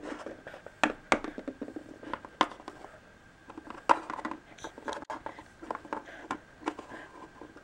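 Plastic Littlest Pet Shop figures being handled and set down on a table: irregular clicks and taps, the sharpest knocks about a second in and about four seconds in.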